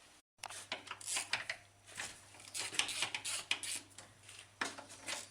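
Irregular metallic clinking, scraping and rattling, as of a metal part or hand tools being handled under a car.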